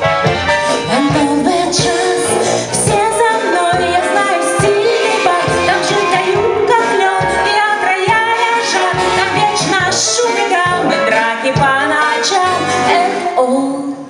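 A woman singing a pop song into a microphone over amplified music with a steady drum beat.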